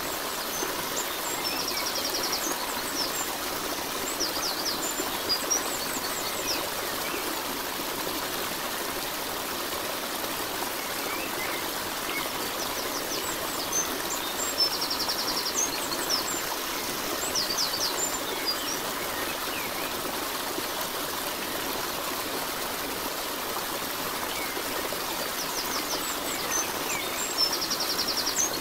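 Steady rush of a flowing stream, with small birds chirping and giving a quick trill over it. The same bird calls come back about every 13 seconds, as in a looped nature recording.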